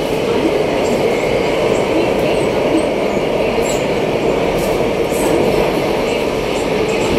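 Refurbished Alstom Metropolis C751A metro train heard from inside the carriage while running through the tunnel: a steady, loud rumble of wheels on rail with a constant hum.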